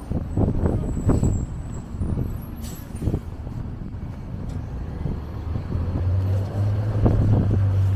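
City street traffic: motor vehicles running close by, with a brief hiss about two and a half seconds in and a steady low engine hum in the last two seconds.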